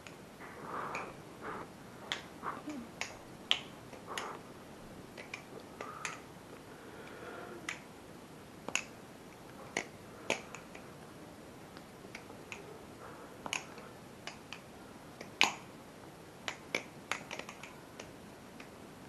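Solid aluminium balisong (butterfly knife) being handled and flipped: irregular sharp clicks and knocks as the handles swing open and shut, some loud, spaced a fraction of a second to a couple of seconds apart.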